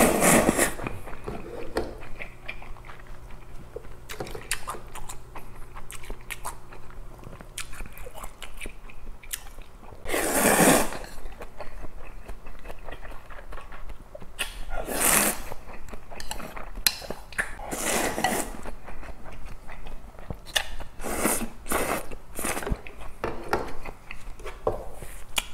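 Close-miked eating of cold soybean-broth noodles: wet chewing and smacking with frequent small clicks, broken by about five loud slurps, one right at the start, one about ten seconds in and several more in the second half.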